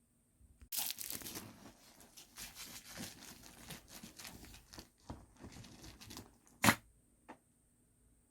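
A dog tearing and rustling at a fibre toy in irregular scratchy bursts. About two-thirds of the way through comes a sharp knock, and a lighter one just after it.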